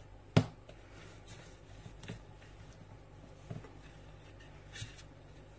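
Wooden rolling pin rolling pizza dough on a floured board: faint rubbing and light knocks. A single sharp knock comes about half a second in, the loudest sound, and a low steady hum runs underneath.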